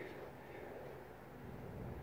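Quiet pause with no distinct event: only a faint steady low hum and background hiss.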